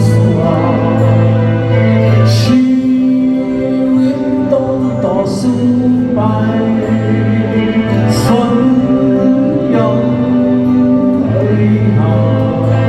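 Rock band playing live, an instrumental passage of sustained chords over a held bass line, with a cymbal crash about every three seconds.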